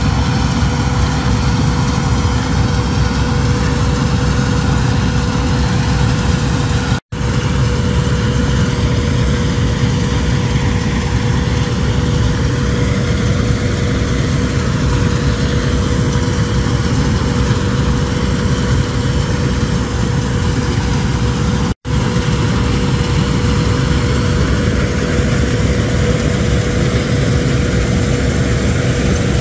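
Bizon Rekord combine harvester running steadily while cutting, a dense engine drone with a thin steady whine over it. The sound drops out for an instant twice, about seven and twenty-two seconds in.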